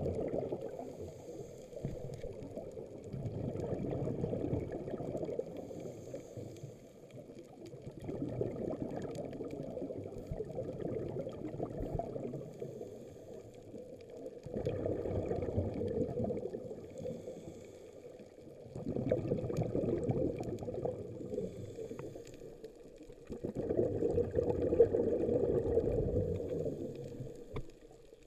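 Scuba regulator breathing underwater: exhaled bubbles gurgle in swells of three or four seconds, about six times, with quieter inhales between them.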